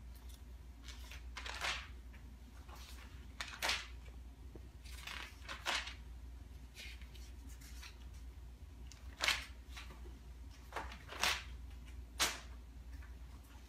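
Magazine pages being turned and handled: about eight short papery swishes and rustles, irregularly spaced, over a low steady room hum.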